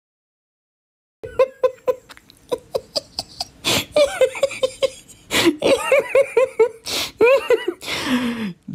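Silent for about the first second, then a person laughing hard in quick repeated bursts, with sharp breaths drawn in between them.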